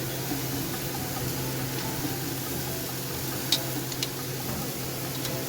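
Beef steaks sizzling on a hot grill grate, a steady crackling hiss with a couple of sharp pops about three and a half and four seconds in.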